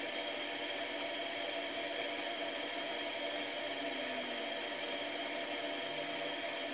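A steady whirring machine hum with several steady tones over a light hiss, holding an even level throughout.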